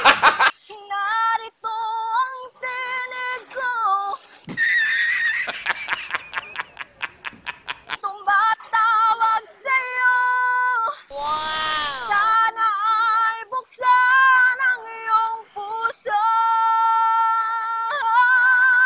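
A woman sings a Tagalog love ballad in a strained, exaggerated voice, holding long wavering notes. A rough, fluttering stretch comes a few seconds in, and a long sliding wail comes past the middle.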